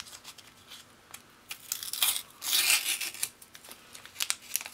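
Blue tape being peeled off a silver parts bag: scattered small crackles, then a longer ripping rasp about two seconds in that lasts about a second.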